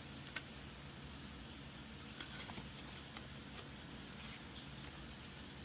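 A few faint clicks and light taps from handling a circuit board, over a steady low hum and hiss of room tone.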